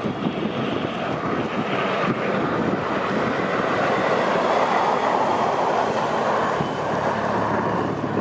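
Snow plow vehicles passing: a dense, steady rushing noise that swells to its loudest around the middle and eases off near the end, over wind on the microphone.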